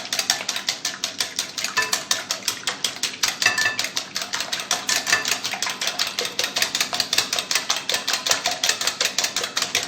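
Eggs being beaten by hand in a bowl, the utensil clicking against the bowl in a fast steady rhythm of about five or six strokes a second, stopping at the end.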